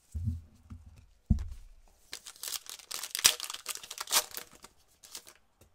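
A 2019-20 Optic basketball card pack's wrapper being crinkled and torn open by hand for about three seconds, with sharp crackles. It is preceded by two dull thumps, one at the start and one a little over a second in.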